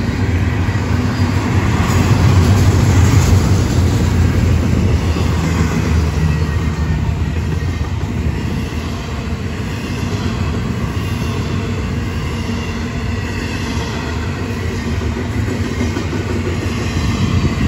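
Florida East Coast freight train's double-stack container well cars rolling past, a steady noise of steel wheels on rail.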